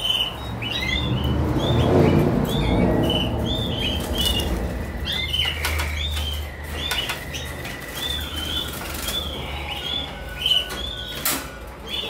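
Waterslager canaries in wire breeding cages fluttering their wings and giving many short repeated chirps, with a few sharp clicks of the cage wire being handled.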